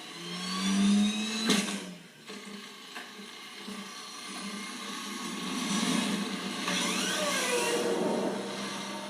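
Film chase sound effects: a high whining small motor whose pitch rises over the first second and a half, a sharp loud hit about 1.5 s in, and swooping whines and vehicle noise later on.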